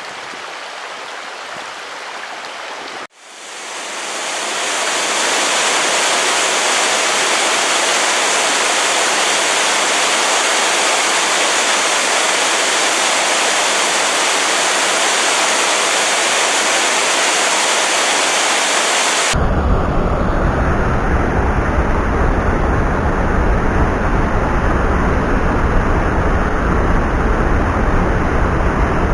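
Steady rushing of a mountain stream, loud and even; about three seconds in the sound cuts briefly and fades back in louder. About two-thirds through it cuts to a different steady noise with a heavy low rumble.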